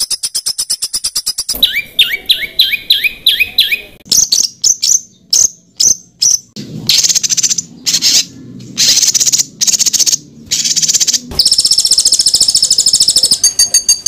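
Recorded songbird calls edited together as a masteran training track of rapid-fire 'tembakan' phrases: a fast ticking rattle, then a string of quick rising whistles, then sharp high chips and long buzzy high-pitched trills.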